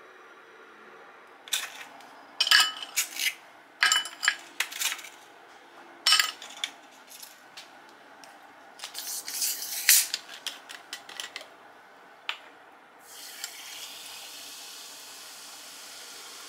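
Sharp clinks of ice against a glass, then, from about thirteen seconds in, a steady fizzing hiss as carbonated water is poured from a plastic bottle over ice into the glass, foaming up.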